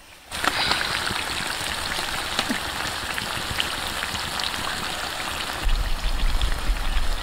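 Slices of taro sizzling and crackling as they fry in oil in a pan, a dense steady spatter of small pops that starts suddenly. A low rumble joins near the end.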